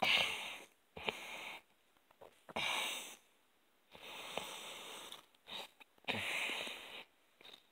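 Heavy breathing through the nose close to the microphone while eating a burger, about six breaths, each half a second to a second long, with short pauses between them.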